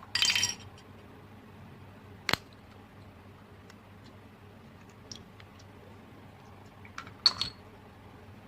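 Slime being handled and worked: a short crackly burst near the start and another near the end, with a sharp click between them and a few faint clicks.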